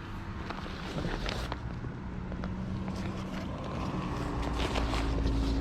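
A vehicle engine running nearby, its low rumble growing louder toward the end, with a few small clicks and handling knocks over it.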